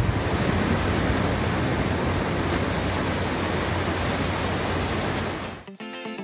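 Small waves breaking and washing up a sandy beach, a steady rush of surf. Music starts near the end.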